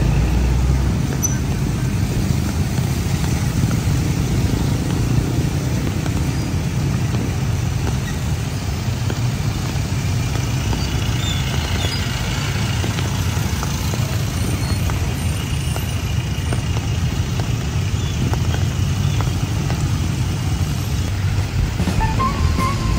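Street traffic: motor vehicles running and passing in a steady low rumble.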